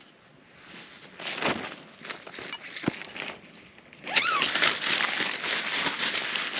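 Rustling and crackling handling noise with a knock or two, growing louder and denser from about four seconds in.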